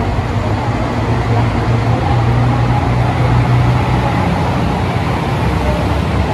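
Steady, loud vehicle rumble with a low hum underneath.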